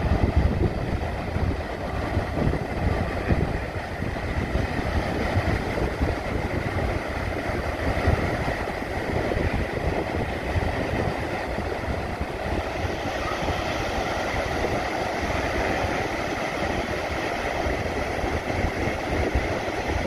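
Ocean surf breaking and washing up the beach, with wind buffeting the microphone in a heavy, uneven low rumble.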